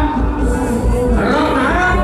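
Music with a voice singing over a steady low bass beat.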